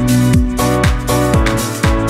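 Electronic dance music with a steady kick drum at about two beats a second under held synth chords.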